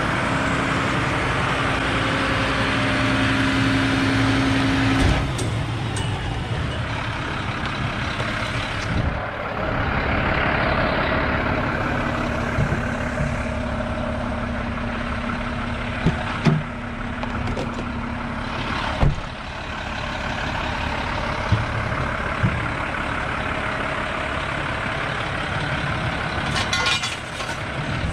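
Truck engine running steadily, with a few sharp metallic knocks and clanks scattered through it.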